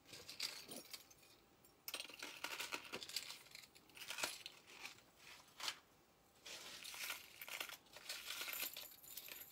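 Costume jewelry being handled: irregular light metallic clinks of necklace chains and pieces, mixed with rustling.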